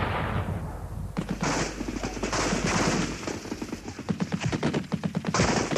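Automatic gunfire: many shots in rapid bursts, over a low rumble that fades about three seconds in.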